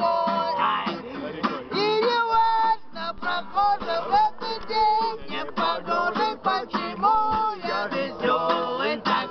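Several voices singing together to a strummed acoustic guitar.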